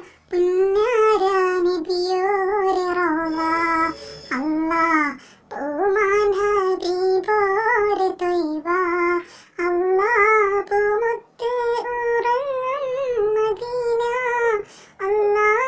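A high solo voice singing a Malayalam Nabidina song praising the Prophet, with no accompaniment. The phrases are ornamented and wavering, broken by short pauses.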